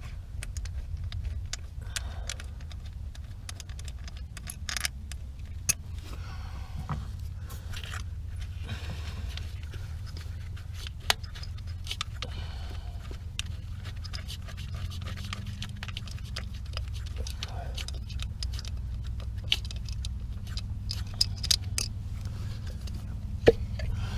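Metal hand tools clicking, clinking and scraping irregularly as the 10 mm bolts holding a 5.7 Hemi's ignition coil are taken out, over a steady low hum.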